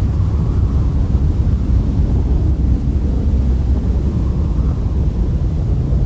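Deep, steady rumbling roar of a heavy ocean wave breaking.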